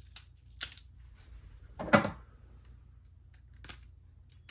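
Butterfly knife trainer being flipped and worked: its handles clack together in sharp, irregular clicks, with one louder clack about two seconds in. The trainer is new and still stiff, being worked to loosen up.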